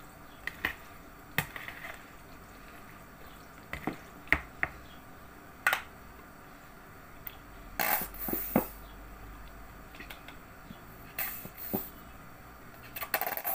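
Scattered light clicks and knocks of kitchen handling: a spoon tapping against a mixing bowl while stirring salad, then a plastic mayonnaise squeeze bottle being handled and squeezed over the bowl, with a louder short burst of noise about eight seconds in. The bottle is hard to squeeze because its foil seal has not been fully opened.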